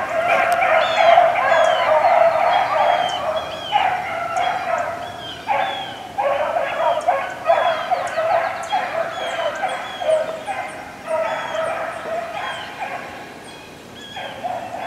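A pack of rabbit hounds giving voice on a running rabbit's trail: many overlapping baying and barking voices. They dip briefly about thirteen seconds in, then pick back up.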